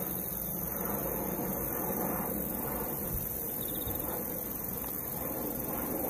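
Steady outdoor background noise: a low rumble with hiss, no distinct events; the snipe is not calling.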